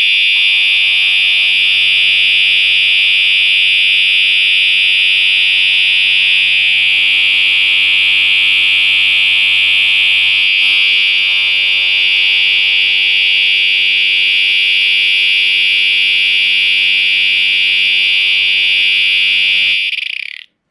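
Siemens UMMT multi-tone horn strobe sounding a steady, unbroken, ear-piercing continuous horn, set off by a pulled fire alarm pull station. It cuts off abruptly about twenty seconds in when it is manually silenced.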